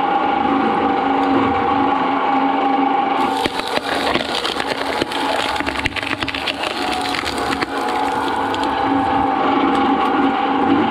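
Twin-shaft shredder running with a steady motor hum while its toothed blades grind a husked coconut. About three seconds in come some four seconds of dense cracking and splintering as the husk and shell break up, then the hum alone.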